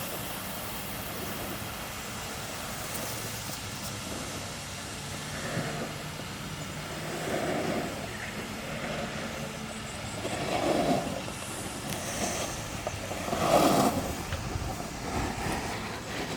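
Steady rolling rumble and hiss, most likely freebord wheels on pavement with wind on the microphone, swelling louder several times, loudest about three-quarters of the way through.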